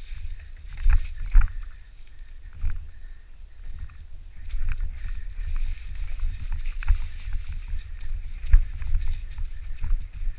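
Mountain bike rolling over a rough dirt trail: irregular knocks and rattles from the bike over bumps, over a steady low rumble of wind buffeting the microphone.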